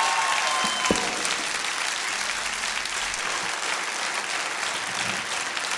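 Studio audience applauding, a steady wash of clapping, while a last held musical note fades out in the first second.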